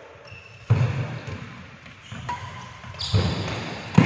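Badminton doubles rally: three sharp hits, about a second in, around three seconds in and at the very end, each echoing in a large hall, with brief squeaks of shoes on the court.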